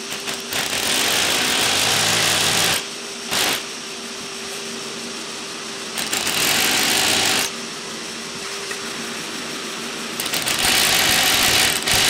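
SDS Plus hammer drill boring into a concrete floor slab in three bursts of about two seconds each, with a brief blip between the first two. Under it a shop vacuum runs steadily with a constant hum, drawing off the concrete dust.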